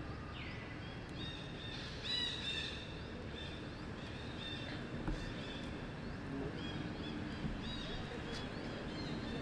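Many short, high-pitched animal chirps and squeaks, one after another, over a steady outdoor background hiss.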